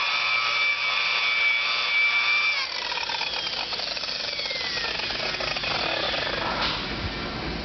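Dual-action (random orbital) polisher running at high speed, buffing a Corian countertop with polishing compound. About a third of the way in, its whine falls in pitch and gets quieter, and it keeps running at the lower speed.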